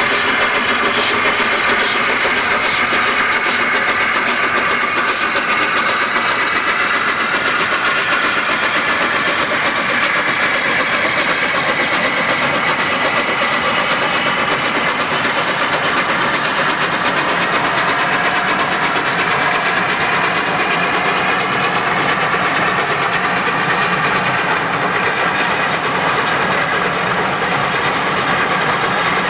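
Steam locomotive working hard as it hauls a train of passenger coaches past, its exhaust and the wheels on the rails heard together.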